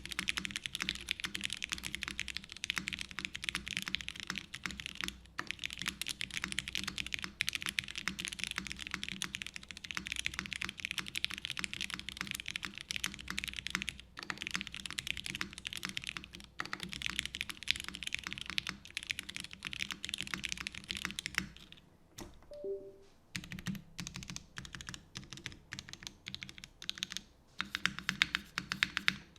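Continuous fast typing on a custom mechanical keyboard with lubed Gateron Ink linear switches, GMK keycaps and a UHMWPE plate: a dense stream of key clacks. The typing stops briefly about two-thirds of the way through, then resumes as sparser strokes before speeding up again near the end.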